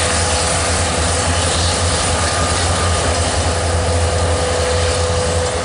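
Two EMD diesel-electric locomotives, an SD70MAC and an SD70ACe with 16-cylinder two-stroke 710 engines, working as rear distributed power on a coal train. They make a steady, loud diesel drone with a constant high tone above it.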